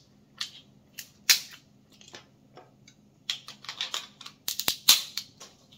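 Cooked rock crab shell being cracked and picked apart with a metal crab cracker: a sharp crack about a second in, then a quick run of cracks and clicks around four to five seconds in.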